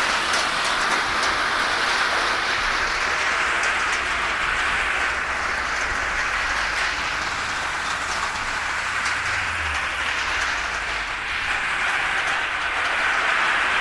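Kara Makine walnut sizing machine running: a motor-driven perforated steel drum turning, with a dense, steady rattle of walnuts tumbling inside it and pouring through its holes onto the sorting trays.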